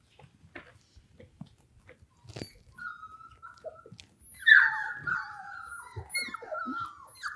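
Five-week-old German Shorthaired Pointer puppy whining: a short whine about three seconds in, then a louder, high whine falling in pitch about a second later, followed by more broken whines. A few faint taps come before the whining.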